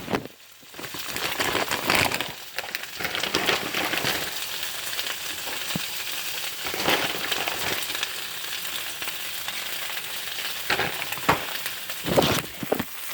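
Spinach sizzling in butter in a frying pan, a steady frying hiss, with a few sharp knocks scattered through it.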